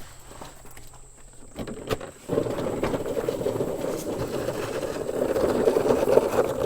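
Rough, continuous scraping and rustling as a portable fridge is unloaded from a truck, starting about two seconds in after a few light knocks.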